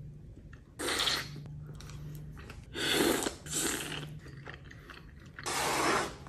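A person eating a soup dumpling from a spoon: biting and chewing, with four short, loud slurps.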